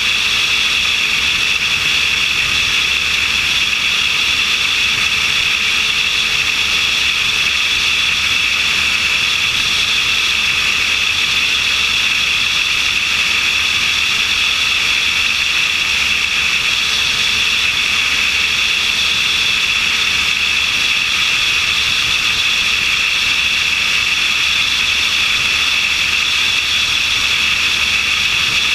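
Steady, loud rush of airflow over a wing-mounted camera on a light aircraft in flight, with a faint steady engine and propeller drone underneath.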